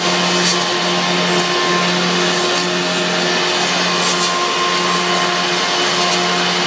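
Wood copy-turning and sanding machine running: a steady motor hum with a few held tones over an even hiss, with a few faint high ticks.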